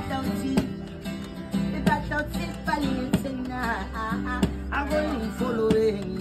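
Background music: a song with plucked acoustic guitar and a singing voice.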